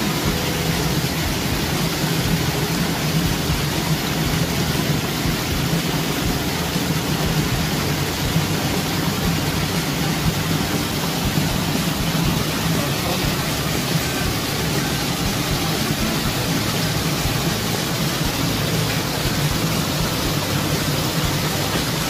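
A steady, loud rushing noise with a low hum underneath, with no distinct strokes or calls.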